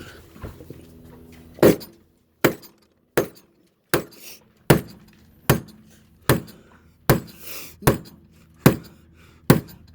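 Mallet tapping a mahogany plug down into a hole in a boat deck: eleven sharp, evenly spaced knocks a little under a second apart. The plug has stopped moving, which the owner puts down to the epoxy around it having already set.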